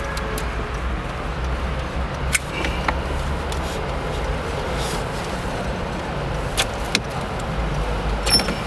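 A few short sharp clicks and rattles as the plastic wiring-harness connectors are worked loose from the back of the factory head unit, over a steady low rumble.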